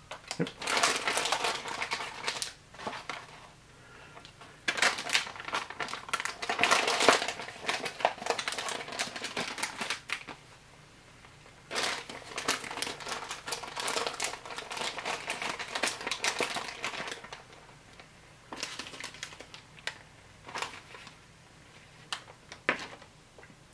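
Plastic and foil ration packets crinkling as they are handled, in bursts of a few seconds with short pauses between.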